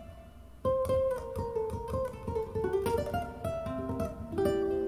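Acoustic guitar picking and strumming an instrumental passage between sung lines, played back over JBL 4305P active speakers and picked up by microphones across the room. The playing drops low for about half a second at the start, then comes back in.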